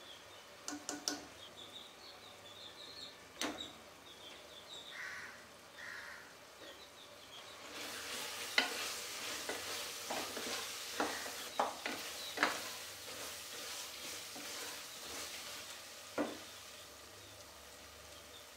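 Onion-tomato masala sizzling in a pressure cooker while it is stirred, the utensil clicking and scraping against the pot. There are a few light taps early on. The sizzle and scraping grow louder about eight seconds in and ease off around fifteen seconds, with one last click after that.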